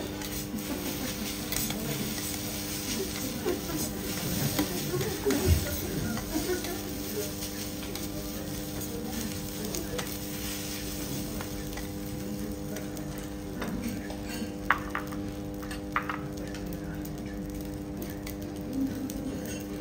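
Garlic fried rice sizzling on a steel teppanyaki griddle while two metal spatulas scrape, chop and turn it, the steel edges clicking and scraping on the plate. The scraping is busiest in the first third, and a few sharp clicks come about three-quarters of the way through.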